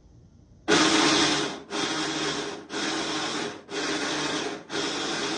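Washing machine running a wash and making a loud mechanical noise that starts about a second in and comes in even strokes about once a second, with short breaks between. This noise during washing is the machine's fault, the problem to be repaired.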